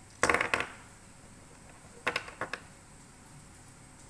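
Small metal parts of a brake wheel cylinder clicking and clinking as they are handled and set down. A quick cluster of loud clicks comes just after the start, then about four lighter clicks two seconds in.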